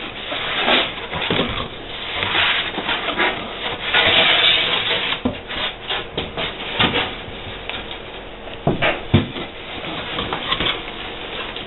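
Cardboard box and packing material being handled: rustling and scraping, heaviest about four seconds in, with a couple of sharper knocks later on.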